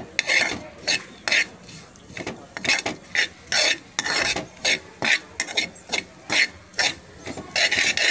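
Steel slotted spoon scraping and stirring ground masala across a non-stick frying pan as it is fried dry in ghee, in short quick strokes about twice a second.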